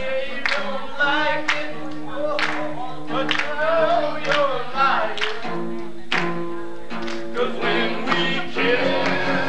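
Live music: acoustic guitar chords under wavering singing, with a sharp hit on the beat about once a second.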